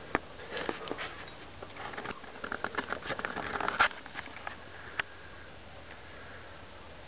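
Irregular clicks and rattles from a moving bicycle and a handheld camera. They crowd together a few seconds in, then stop after one last click, leaving a faint steady hiss.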